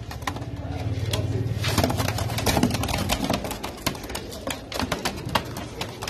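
Caged Mosuli domestic pigeons cooing, with low drawn-out coos about a second in and many short sharp clicks among them.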